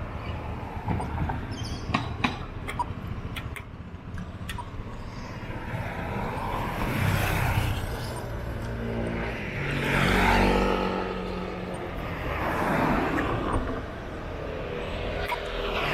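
Road traffic: cars passing one after another, each swelling up and fading away, about every three seconds in the second half. A few sharp clicks come in the first few seconds.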